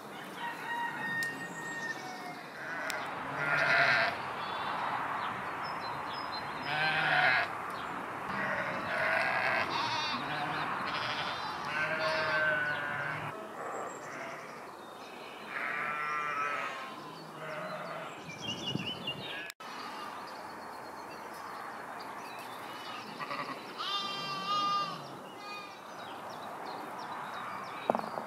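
Sheep and lambs bleating, many separate calls of different pitch scattered throughout, some with a quavering pitch.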